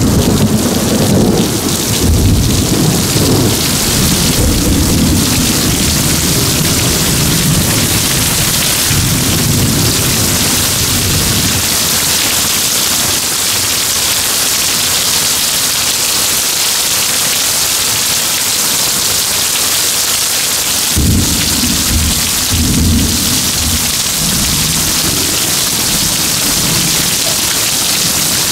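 Heavy rain pouring steadily in a severe thunderstorm, with thunder rumbling through the first dozen seconds and again briefly about two-thirds of the way in.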